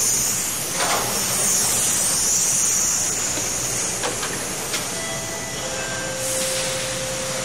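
Car assembly line noise: a steady hissing din of factory machinery, with a few sharp clicks and knocks of tools, and faint steady tones joining about five and a half seconds in.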